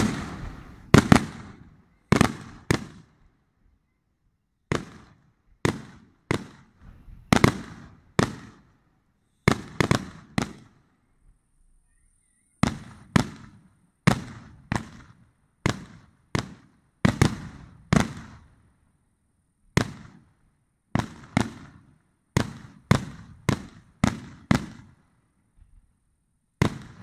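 Aerial firework shells bursting in a long, irregular string of sharp bangs, each trailing off in a rumbling echo. Some come in quick pairs or triplets, with a couple of brief lulls.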